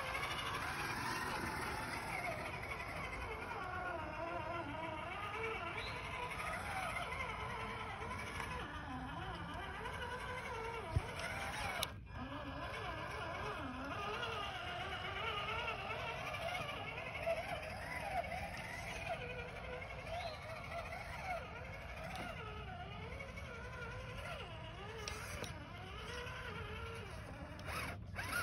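Electric motor and gearbox of an RC scale crawler truck whining as it crawls over dirt, the pitch wavering up and down with the throttle.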